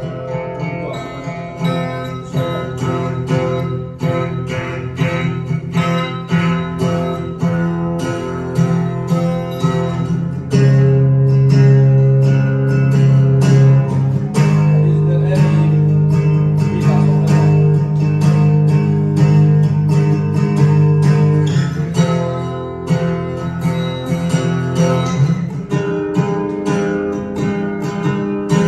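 Music led by plucked and strummed acoustic guitar, with steady, evenly paced notes; it gets louder about ten seconds in, with a strong low part, then eases back about twenty-two seconds in.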